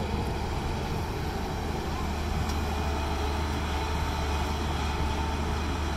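Diesel engine of a Hyundai 210 crawler excavator running steadily with a low hum while the machine works, swinging its boom and upper body away from the dump truck.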